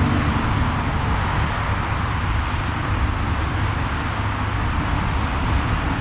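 Steady outdoor background noise with a deep, uneven rumble, like road traffic or wind; no voice or clear music.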